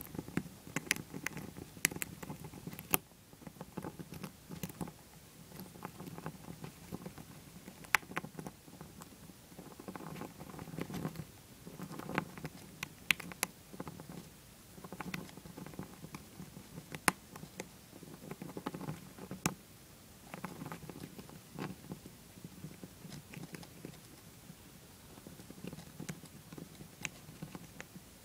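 Dwarf hamster chewing and gnawing a shelled peanut close to the microphone: soft bursts of chewing every second or two, with scattered sharp crunching clicks.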